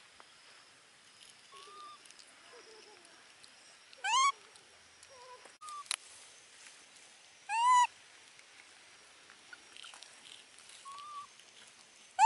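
Baby macaque giving three short high-pitched coo calls, each rising then falling, a few seconds apart, the last near the end.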